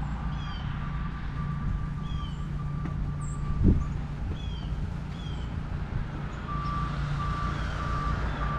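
A vehicle's reversing alarm beeping in short evenly spaced beeps at one steady pitch over a low engine rumble; the beeping stops a little before halfway and starts again with longer beeps near the end. A single thud comes just past halfway.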